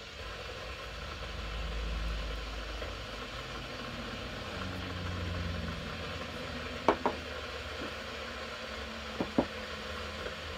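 Water heating toward the boil, a steady low rumble and hiss that swells and eases. Two pairs of sharp clicks come about seven and nine seconds in.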